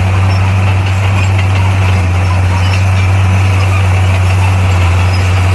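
Bulldozer's diesel engine running steadily with a deep, even hum.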